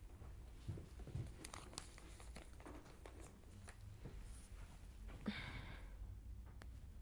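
Faint handling of magazines and paper: scattered light clicks and knocks, then a longer rustle about five seconds in.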